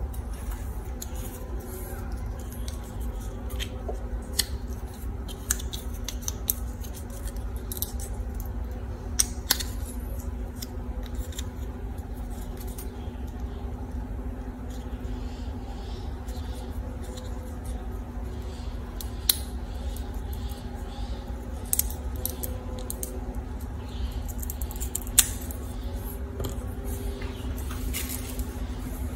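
Scissors snipping a plastic drinking straw: short sharp snips at irregular intervals over a steady low hum.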